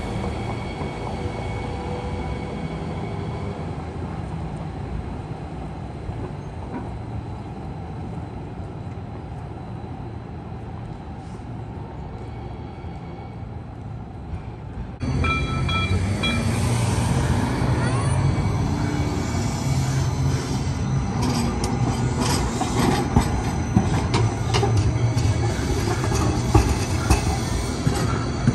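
VTA low-floor light rail train running on street track, its rumble slowly fading as it moves off. About halfway through the sound jumps louder as a light rail train passes close by, wheels rumbling on the rails with some brief high squeals and clicks.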